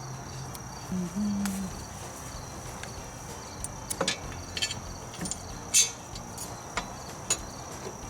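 Crickets chirping steadily, with a few scattered sharp clicks and knocks from work on the mower; the loudest knock comes about six seconds in.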